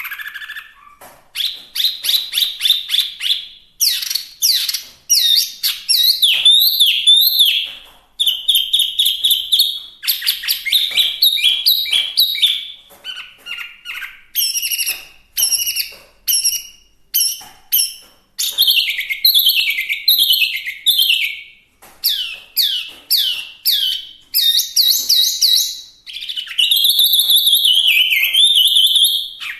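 Chinese hwamei (wambi) singing a loud, varied song of fast runs of repeated whistled notes and downslurred phrases, changing phrase every few seconds with short pauses between.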